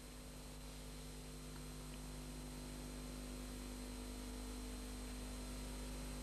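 Steady electrical hum with a faint even hiss, slowly growing a little louder; no other sound.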